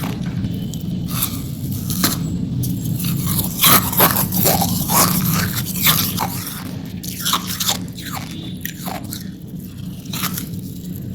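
Hard ice being bitten and crunched between the teeth close to the microphone: a run of irregular sharp cracks and crunches over a steady low hum.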